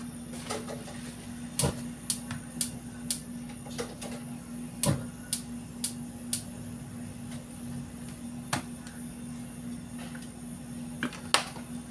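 Sharp clicks, several in short runs about two a second, over a steady low hum while an empty non-stick wok heats on a gas stove.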